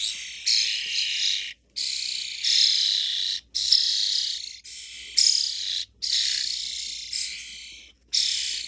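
Young starlings giving harsh, noisy begging calls while being hand-fed, one after another, each about a second long with short breaks between.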